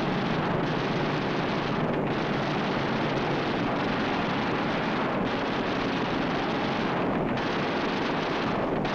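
Steady, even roar of warplane engines, a dubbed sound effect on an old film soundtrack.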